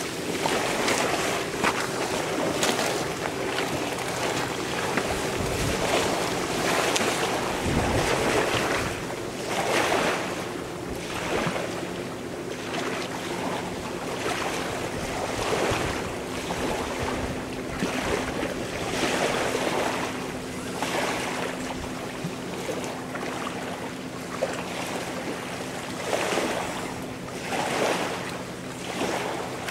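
Small waves washing onto a stony shore, swelling and falling back every second or two, with wind on the microphone and a faint steady hum underneath.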